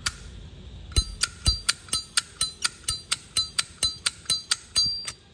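Zippo lighter's hinged metal lid snapped open and shut over and over, about four sharp clicks a second, each with a brief high metallic ring.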